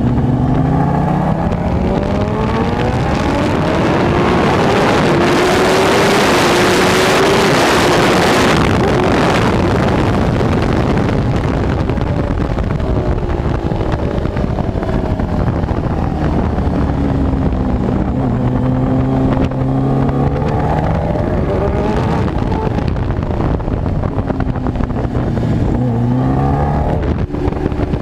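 Supercharged inline-four engine of a Kawasaki Ninja H2R, heard from on board, pulling hard up through the gears with the revs climbing in steps. A loud rushing noise, wind on the microphone at speed, swamps it for a few seconds in the middle, and near the end the revs drop and climb again.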